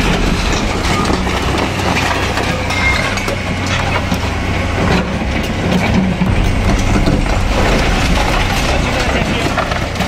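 Hydraulic excavator's diesel engine running steadily under load as its bucket tears into a brick house, with continual crunching and clattering of breaking masonry, timber and metal roofing.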